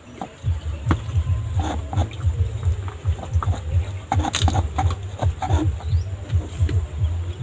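Close-miked eating sounds: chewing and munching as a steady, irregular run of low thumps about three times a second, with small crunches and clicks.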